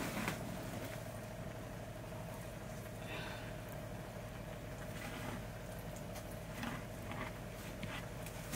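Quiet room tone with a steady faint hum, and a few soft rustles as hands squeeze and turn white grain in a large plastic drum.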